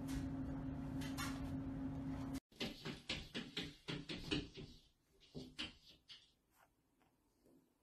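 A steady low hum for about the first two seconds, then a cat's paws patting against a wet glass shower screen: a quick, irregular run of taps that thins out and stops about six seconds in.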